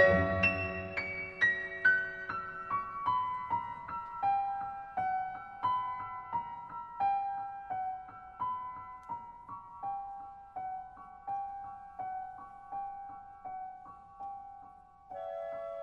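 Slow solo piano music: single notes about two a second, stepping downward at first and then repeating around one pitch as they grow softer, with a new held chord coming in near the end.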